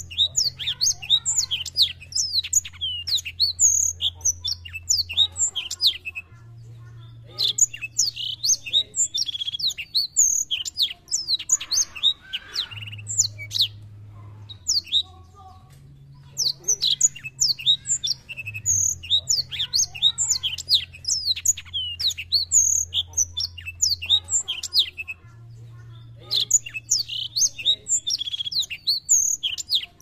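Caged black-throated canary (black-throated seedeater) singing a fast, varied song of high chirps, trills and whistles. It sings in bouts of several seconds with short pauses about 6, 14 and 25 seconds in.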